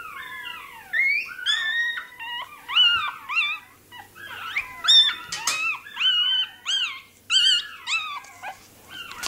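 Very young Russian Toy terrier puppy crying during tail docking: a run of shrill squeals that rise and fall, about two a second.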